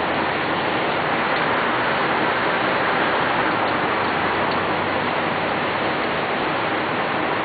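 Steady rushing noise of Niagara's Horseshoe Falls, an even hiss with no breaks.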